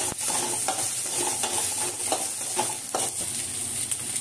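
Sliced onions sizzling in oil in a stainless steel kadai, with a spatula stirring them in repeated scraping strokes against the pan, about two to three a second, thinning out near the end.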